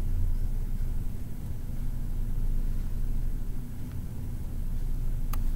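Steady low hum and rumble of background noise picked up by the recording microphone, with a single faint mouse click near the end.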